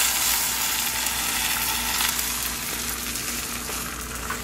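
Beaten eggs sizzling in a hot, oil-free nonstick frying pan just after being poured in, a steady hiss that slowly eases.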